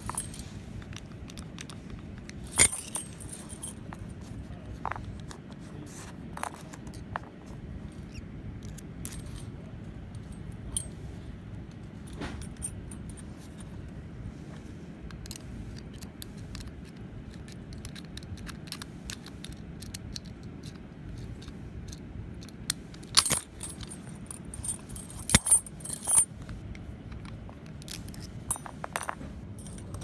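Keys on a ring jangling against a padlock's steel shackle, with small metallic clicks from a transparent practice padlock being handled. Scattered light clicks run throughout, with a sharper tap about two and a half seconds in and a cluster of louder clinks near the end.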